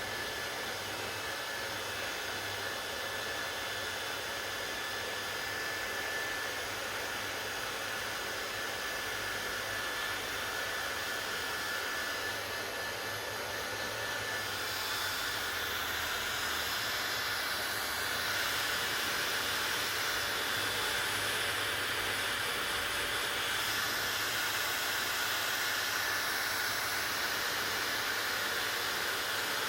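Hand-held hair dryer running steadily: a constant rushing whoosh of air with a faint whine in it, getting a little louder and slightly changing tone about halfway through.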